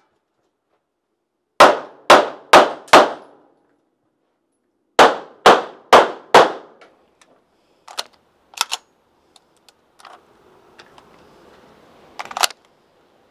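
Handgun fired in two quick strings of four shots about half a second apart, each shot with a ringing tail. Lighter clicks follow, then a sharp clack near the end.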